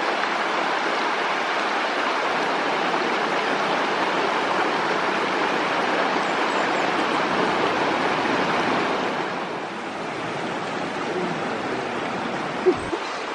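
Shallow rocky river rushing and splashing over stones, a steady rush of water that becomes a little softer about three-quarters of the way through. A single short knock comes near the end.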